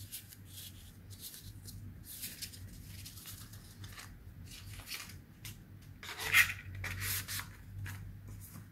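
Paper sticker cards being handled: a stack of thin card sheets shuffled and rubbed against each other in many short soft scrapes, with a louder rustle about six seconds in.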